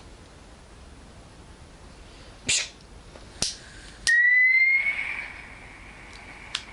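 Dremel VersaTip 2000 butane gas soldering iron being lit: a short hiss, two sharp clicks, then a loud whistling tone that rises slightly and settles into a steady, quieter whistle and hiss of flowing gas.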